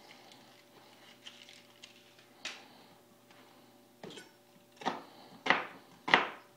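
Chef's knife slicing through a red onion onto a plastic cutting board: a few faint clicks, then a light knock and three sharp chops, evenly spaced about half a second apart, in the second half.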